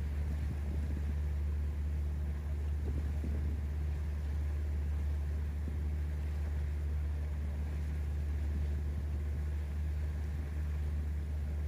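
A steady, low engine drone with an even rumble and no change in pitch or level.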